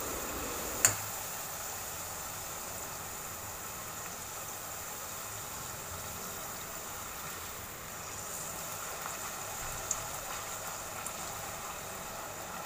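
Steady sizzling of a thin wheat-flour pakwan deep-frying in hot oil in a steel pot. A sharp click about a second in, and a fainter one near ten seconds.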